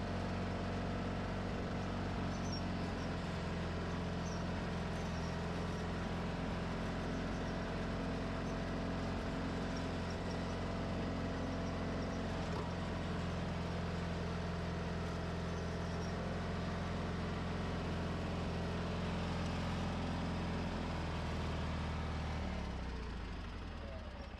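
John Deere 420 garden tractor's Onan twin-cylinder engine running steadily as the tractor drives along a gravel driveway; the engine note drops lower near the end as it slows down.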